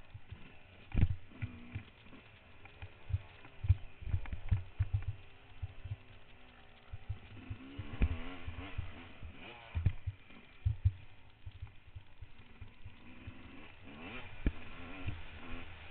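Trail motorcycle engine running faintly, its pitch wavering up and down, under frequent irregular low thumps and knocks that are the loudest thing heard.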